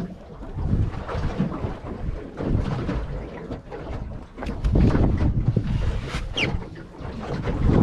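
Wind buffeting the microphone on a small fishing boat at sea in stormy weather, a rough low rumble that swells and fades in gusts, loudest about five seconds in, with a few knocks and a brief high squeak a little after six seconds.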